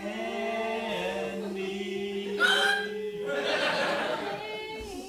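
Several voices singing together unaccompanied, holding a chord for about three seconds, with a brief louder cry about halfway through; the singing then carries on more quietly.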